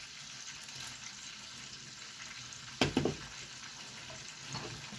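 Seasoned chicken pieces frying in hot oil in a pot: a steady sizzle, with two sharp knocks close together about three seconds in.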